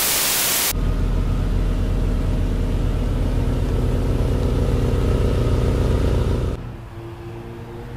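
A short burst of static hiss, then the Ferrari 488 GTB's twin-turbo V8 with its custom exhaust idling steadily with a deep rumble. About six and a half seconds in it cuts to a quieter, steady engine note.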